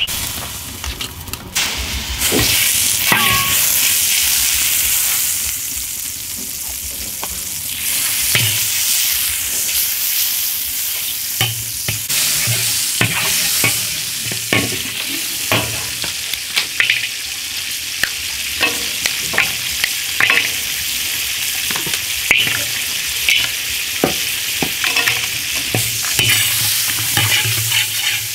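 Butter sizzling as it melts and fries in a stainless steel wok, with a metal ladle scraping and clinking against the wok as it is stirred.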